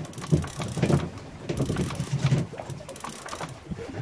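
Fishing reel working under load as a hooked fish is fought on a bent rod: its gears and drag click and whir in uneven surges.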